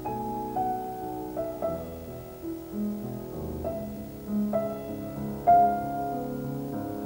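Slow, gentle piano music: single held notes starting about a second apart, each ringing on.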